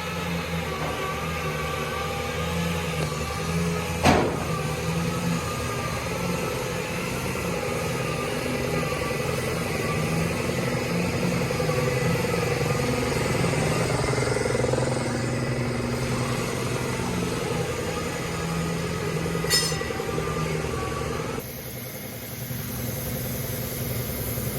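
Truck engine running steadily, with a sharp knock about four seconds in and a smaller click near the end.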